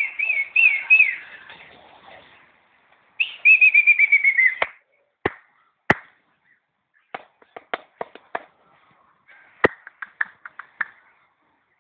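Birds singing in trees: a few wavy whistled notes, then a quick run of whistled notes that falls in pitch. Scattered sharp clicks follow in the second half.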